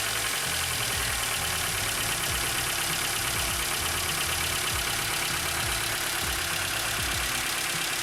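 Vauxhall Corsa's 1.2 Z12XE four-cylinder petrol engine idling steadily just after starting, running with the awful noises and low oil pressure for which it is being replaced.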